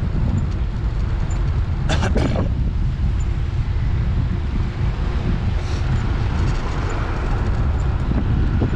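Traffic on a busy road running past, heard over a steady low wind rumble on the microphone while riding.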